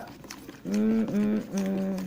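A woman's voice sing-songing a short chant on flat, held notes, starting about two-thirds of a second in.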